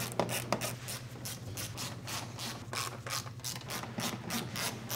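Hand ratchet clicking in quick, even strokes, about four to five clicks a second, as the fasteners of a car's underbody belly pan are run in.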